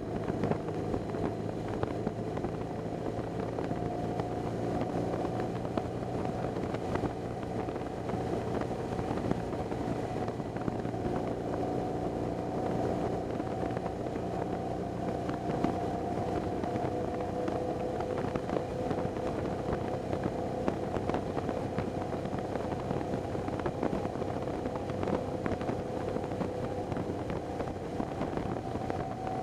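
BMW R 1200 GS boxer-twin engine running under way at a steady, slowly drifting note, with wind rushing over the bike-mounted camera's microphone.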